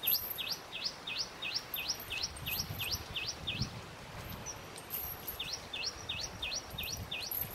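A bird calling a fast series of short, sharp, high notes, about three a second, in two runs, the second starting about five and a half seconds in.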